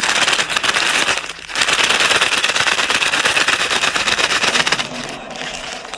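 A bag of Hot Cheetos crushed by hand: the snack bag crackles and crinkles as the chips inside break up, with a short pause about a second and a half in, easing off near the end.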